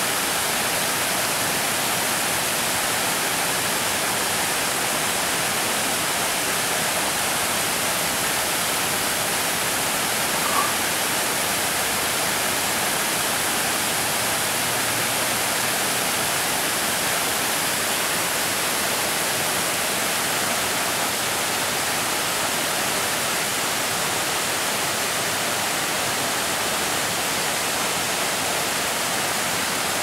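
Creek water spilling over low rock-ledge cascades: a steady rushing hiss, with one brief blip about ten seconds in.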